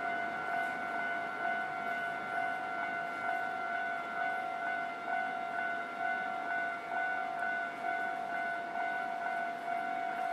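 Japanese railway level-crossing warning bell ringing: one steady pitched electronic tone, pulsing over and over without a break, over a steady noisy rumble.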